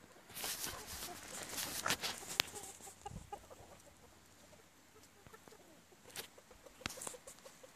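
Partridge Italian chickens clucking softly while foraging, with scattered sharp pecking and scratching clicks. A burst of rustling noise fills the first couple of seconds.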